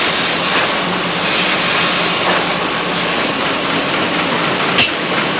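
Factory machinery on a tinplate sheet-coating line, running steadily with a loud mechanical din and a constant low hum. There is one sharp metallic clack near the end.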